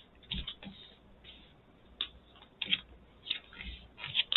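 Playing cards being handled on a tabletop: a few quiet, separate clicks and brushing slides as cards are drawn, set down and turned.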